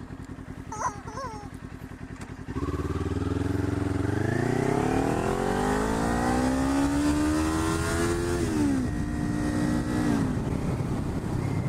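Motorcycle engine idling, then pulling away and accelerating with its pitch climbing steadily, dropping with an upshift about 8.5 s in and running on steadily. A few short high chirps sound about a second in.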